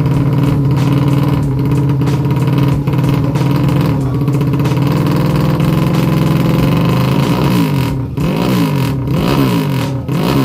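200cc motorcycle with an aftermarket MP2 exhaust idling steadily and loudly, then revved in several quick throttle blips, the pitch rising and falling about once a second, over the last few seconds.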